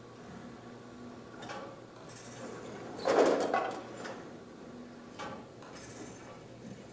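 Golf balls rolling and knocking together along the metal feed rail of an automatic golf tee system, in three short rattling bursts, the loudest about three seconds in.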